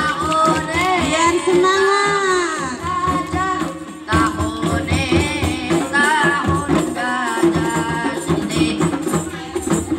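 Hadroh music: voices singing an Islamic devotional melody over rebana frame drums beating a steady rhythm, amplified through a PA.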